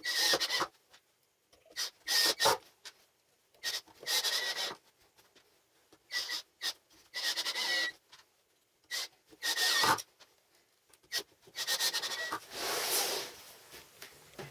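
Rasping strokes of a hand tool rubbed against a workpiece, about ten strokes each under a second long, coming in irregular bursts with short pauses between.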